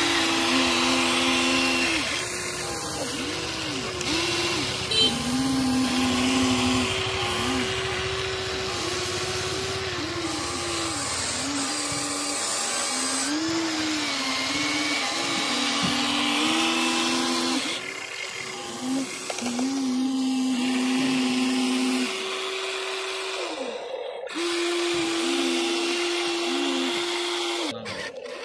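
Huina 1593 RC excavator's electric motors whining as the arm and bucket work, the whine jumping between two pitches and dipping and rising again as the motors start, stop and take load, over a rough scraping of dirt and gravel.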